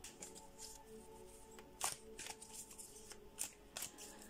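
A deck of cards handled and shuffled by hand: scattered soft rustles and taps, the loudest a little under two seconds in.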